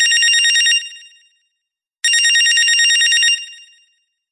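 Telephone ringing with an electronic, bell-like trill: one ring fading out within the first second and a second full ring starting about two seconds in, then fading.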